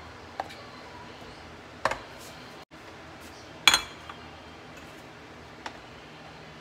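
A few short knocks and clinks of hard plastic and glass on a stone countertop as frozen fruit is loaded into a hand-crank sorbet maker's plastic hopper and pushed down with its plunger. The loudest knock comes about halfway through, as a glass dish is set down on the counter.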